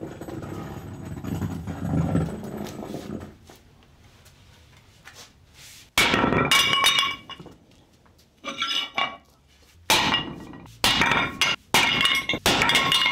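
Sledgehammer striking a cast-aluminum heating plate that rests on a cast iron plate, each blow a sharp metallic clang with a short ring. The first blow lands about six seconds in, and a quick run of blows follows from about eight and a half seconds on.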